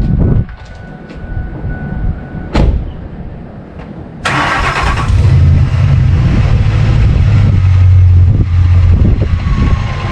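A vehicle engine is cranked and catches a little over four seconds in, then runs steadily with a low rumble. Before it there is a faint steady tone and a single sharp knock.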